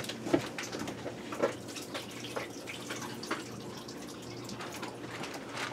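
Water draining and dripping from a plastic bag of peeled, diced russet potatoes, in irregular drips and small splashes. A faint steady hum lies beneath.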